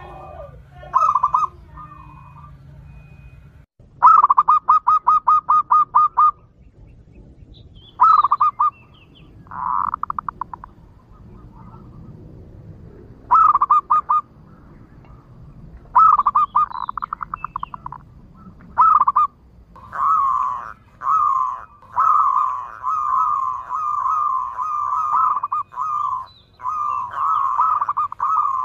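Zebra dove (perkutut) cooing: bursts of fast, stuttering coos, some broken by pauses, running almost without a break in the last third. This is the clear local perkutut song used as a lure call for wild zebra doves.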